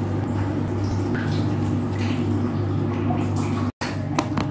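Soft strokes of a felt-tip brush marker on notebook paper over a steady low hum. Near the end the sound cuts out for an instant, then a few sharp clicks.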